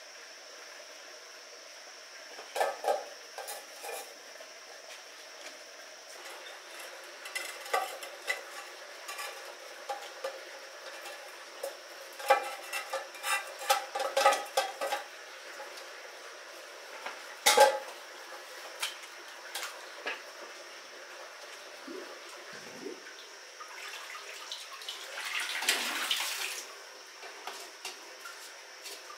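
Scattered clinks and knocks of a small metal pot and camp utensils being handled on rock, with a short wash of water about three-quarters of the way through.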